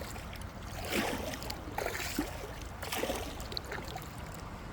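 Kayak paddle strokes in shallow creek water: about three swishing splashes of the blade, roughly a second apart, over a low rumble of wind or handling noise.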